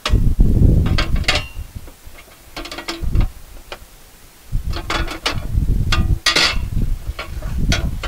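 Metal rack and grille of a Vesta self-powered heater being handled and slotted into place: irregular clinks, clanks and rattles of thin sheet metal, a few with a short ringing note.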